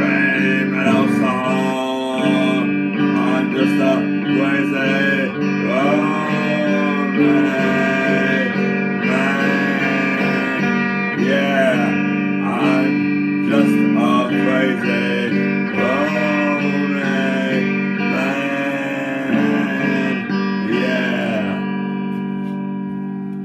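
Electric guitar playing a passage full of bent notes and strummed strokes over a steady held low tone, with the last chord ringing and fading out near the end.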